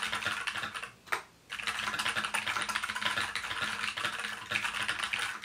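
Fast typing on a computer keyboard: a dense run of key clicks that stops briefly a little after a second in, then carries on.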